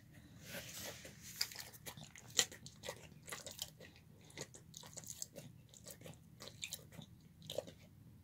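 A dog eating: irregular chewing and crunching, a string of short clicks, the sharpest about two and a half seconds in.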